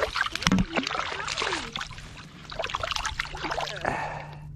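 A hooked stocked trout splashing in the water as it is reeled in fast, with a trickling stream and clicks and knocks of handling. A low steady hum runs underneath from about half a second in.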